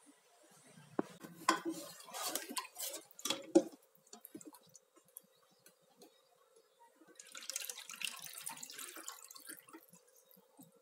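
A metal baking tin knocking and clattering as it is set down, loudest about three and a half seconds in. Then, from about seven seconds in, thick rice-flour batter pours out of a pot into the tin with a wet, splashing trickle for about two seconds.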